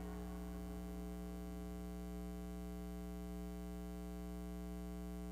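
Steady electrical mains hum, a constant buzzy drone made of many evenly spaced pitches, with nothing changing through it.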